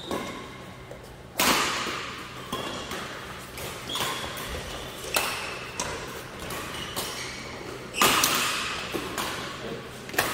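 Badminton rally: rackets strike the shuttlecock in a quick exchange, sharp cracks ringing in a large hall about every second, the hardest hits about a second in and again about eight seconds in. Short squeaks of shoes on the court mat come between the hits.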